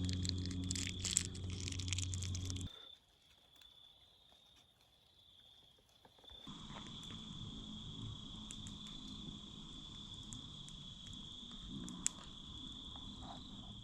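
Insects trilling steadily in one high, even tone. For the first few seconds a loud low steady hum runs with many sharp crackles, then cuts off abruptly; after a very quiet stretch a softer low rumble returns, with an occasional sharp click.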